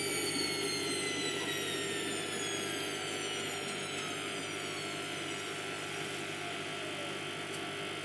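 Hotpoint WMF720P washing machine's drum and motor running down at the end of a spin, a whine falling steadily in pitch over a steady hum.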